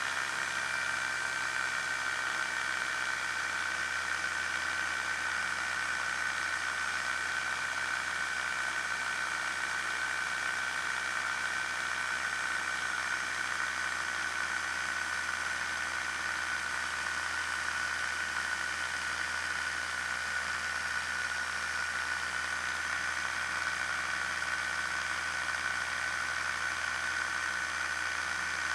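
Challenger II ultralight's pusher engine running steadily in flight, with a steady high whine and wind rushing over the microphone. The pitch eases slightly lower in the first couple of seconds, then holds.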